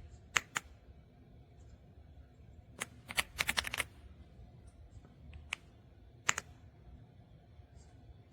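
Keystrokes on an EPOMAKER x Aula F75 gasket-mounted mechanical keyboard: a few single presses, then a quick run of about eight keystrokes around three seconds in, and two more single presses later.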